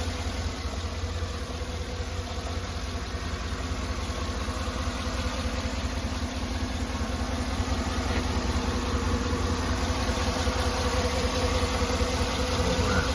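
A 2014 Cadillac Escalade's engine idling steadily, with a new radiator and a freshly filled cooling system.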